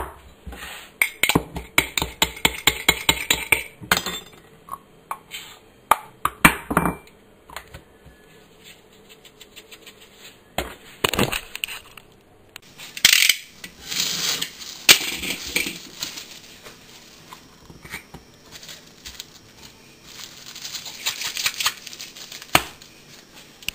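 Salt shaker shaken hard in bursts, the salt rattling inside it in quick strokes of about four or five a second. Salt grains scatter onto a wooden chopping board, with quieter pauses between the bouts of shaking.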